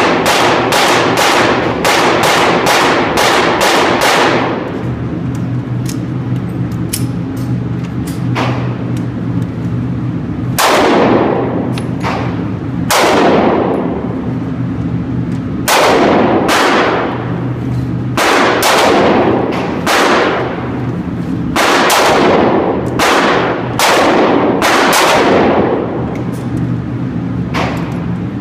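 Smith & Wesson M&P Shield 9mm pistol fired at an indoor range, each shot sharp with a long echoing tail. A quick string of about eight shots opens, fainter shots follow, then from about ten seconds in louder shots come roughly a second apart, over a steady low hum.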